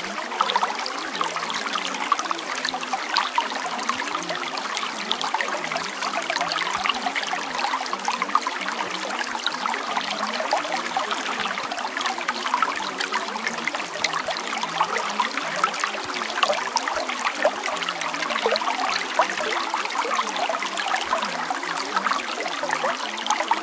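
Running water, like a trickling stream, going on steadily with a fine crackling texture.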